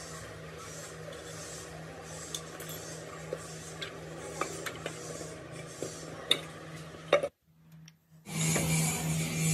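Metal parts of a Holset HX40W turbocharger scraping, rubbing and clinking as it is taken apart by hand, a snap ring worked with pliers and the housing lifted off the cartridge, with scattered sharp clicks over a steady low hum. The sound cuts out for about a second near the end, then comes back louder.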